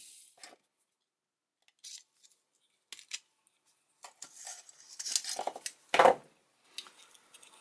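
Handling noise from a cut-open LED bulb: short clicks, scrapes and clinks of its broken plastic shell and clear light guide as the circuit board is worked free. The sounds come in scattered bursts, thickest from about four seconds in, with the loudest click about six seconds in.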